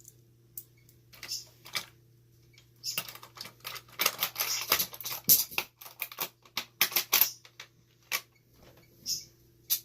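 Knives and a balisong trainer being handled and set into a storage box: irregular clicks and light clatters, thickest through the middle, over a faint steady hum.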